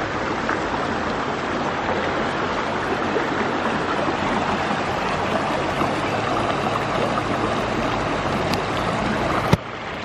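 Shallow river rushing steadily over stones and boulders, a continuous even rush of water that cuts off abruptly near the end.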